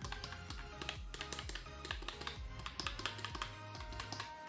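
Typing on a Baseus K01B wireless keyboard with round keycaps: a quick, uneven run of key clicks, several a second, over background music.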